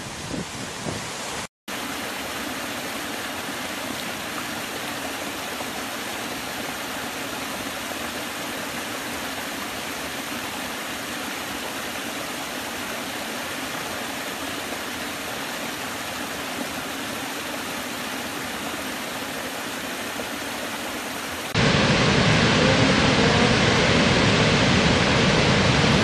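Rushing water from waterfalls, with a short dropout to silence about a second and a half in. After it comes the steady splashing of a small stepped cascade over mossy rocks, which switches about 21 seconds in to the much louder, deeper rush of a massive waterfall throwing up spray.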